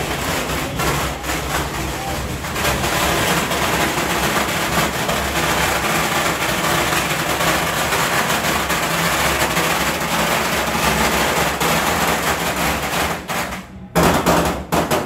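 A long string of firecrackers going off in rapid, continuous crackling. It breaks off briefly near the end, then a last short loud burst follows.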